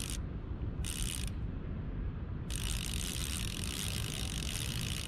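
Fishing reel clicking in ratcheting bursts while a hooked fish is fought on a bent rod: a short burst about a second in, then a long one from about two and a half seconds on.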